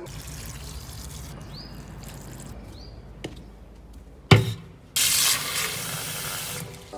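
A kitchen mixer tap running hard into a glass jug in a steel sink for about a second and a half, starting about five seconds in, just after a sharp thump. Before that, a low rumbling handling noise.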